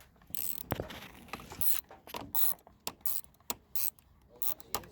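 Screwdriver being worked on a screw on the ATV: a run of irregular metal clicks and short scraping rasps as the tool is turned.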